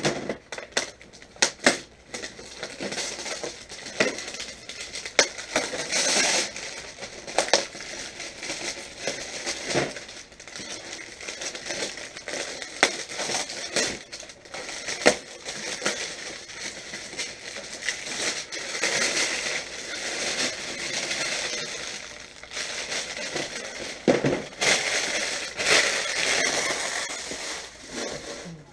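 Crinkling plastic wrap and a cardboard box being handled and opened, with many small clicks and knocks running throughout.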